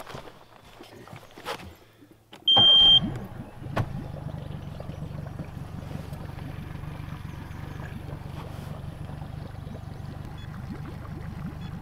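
Outboard motor being started: a few knocks, then a short high beep and a loud burst as it catches about two and a half seconds in, after which it idles steadily with a low hum.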